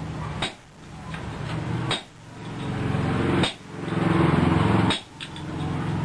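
Blacksmith's hammer striking iron on an anvil, four ringing blows evenly spaced about a second and a half apart. Between the blows a rushing sound swells and drops away at each strike.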